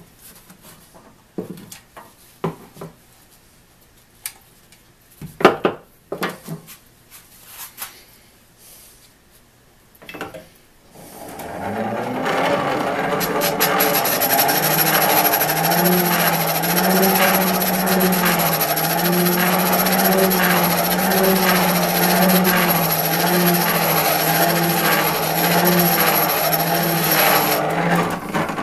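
Keystone hand-cranked bench grinder: a few clicks and knocks of handling, then about eleven seconds in the crank is turned and the geared wheel spins up to a steady whir that wavers in pitch with each turn of the crank. A small steel saw nut is held against the stone, grinding with a rasping hiss and a thin high whine, to shorten it a little more.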